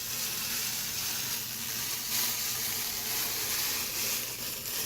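Protective plastic film being peeled slowly off a PC case panel: a continuous crackling hiss that stops abruptly at the end, with a faint steady hum beneath.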